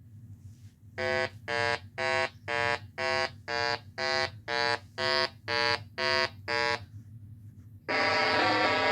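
A construction vehicle's reversing alarm beeping about twice a second, twelve beeps in all before it stops. Near the end a louder continuous sound with a shifting pitch comes in.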